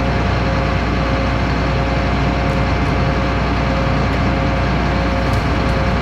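Tractor engine running steadily under load, a constant loud drone with a low hum and no change in speed.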